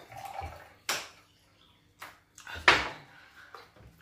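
A drinking glass and a plastic water bottle being handled on a glass-topped table: a few short, sharp knocks and clinks, the loudest about two and a half seconds in.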